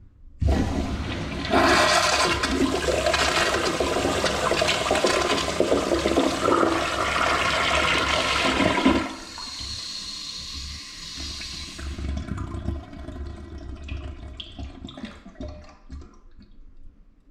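A toilet flushing: a loud rush of swirling water starts abruptly and runs for about eight seconds, then drops to a quieter trickle that fades out near the end.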